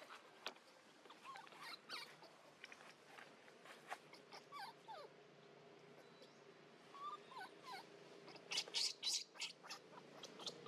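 A monkey giving short whimpering calls that bend up and down in pitch. About nine seconds in comes a quick burst of louder, sharper squeaks.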